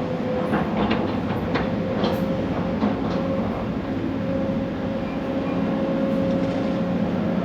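Case long-reach excavator running steadily under load as it dredges mud, with a constant engine hum and tone. A few sharp clanks come in the first three seconds.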